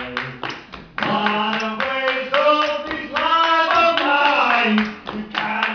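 Quick, steady rhythmic hand clapping, with voices singing over it, holding notes, from about a second in to near the end.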